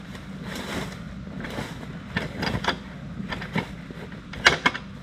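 A motorcycle engine running low and steady, with several sharp knocks and clicks over it, the loudest a pair about four and a half seconds in.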